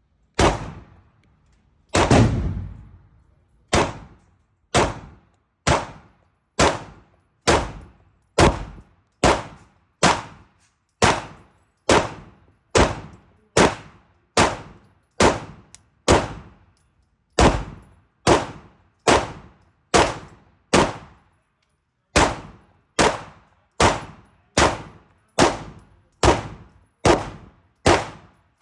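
Glock 17 Gen 5 9mm pistol, fitted with Radian Ramjet and Afterburner parts, fired steadily at about one shot a second, some thirty shots in all. Each report is sharp and rings on briefly, with a couple of slightly longer pauses between shots.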